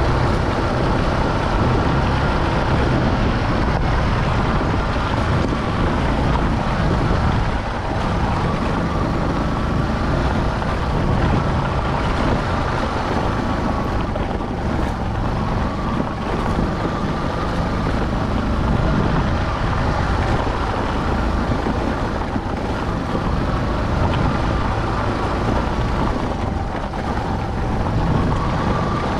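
Motorcycle engine running steadily at low speed over a gravel track, its note rising and falling a little with the throttle, mixed with a steady rush of road and wind noise.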